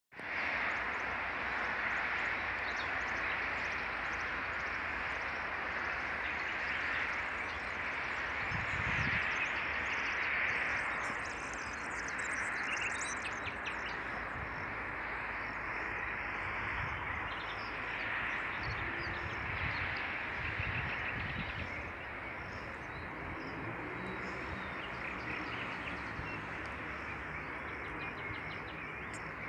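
Outdoor ambience: a steady hiss that swells and fades, with scattered bird chirps, most around the middle, and a few brief low rumbles.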